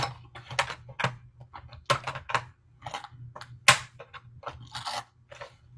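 Action figure packaging of cardboard and plastic being handled and pried open: irregular clicks, scrapes and rustles, with one sharp snap a little past halfway. A low steady hum runs underneath.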